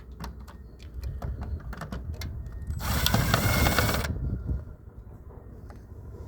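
Light clicks and knocks of plastic parts being handled, then a power tool runs loudly for about a second, just before halfway, and stops.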